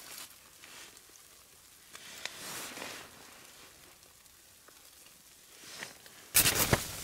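Soft rustling and handling noises in a few short spells, with a much louder bump near the end.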